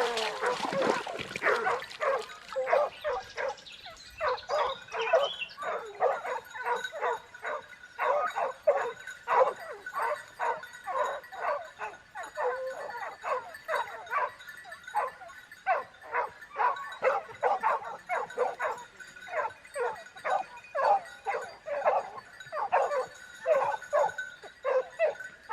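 A dog barking over and over, about two short barks a second, without a break.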